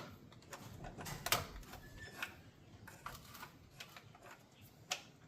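Hand tools clicking and tapping against metal engine parts during work on the intake and fuel rail, a series of irregular light clicks with a couple of sharper knocks.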